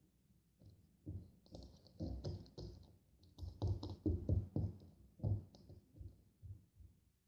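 A rapid, irregular run of soft taps and knocks, several a second, pausing briefly now and then.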